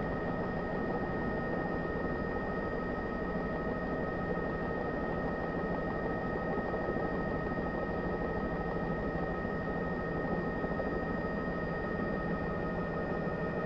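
Steady drone of a helicopter's engine and rotor, with a thin high whine held over it at an even level.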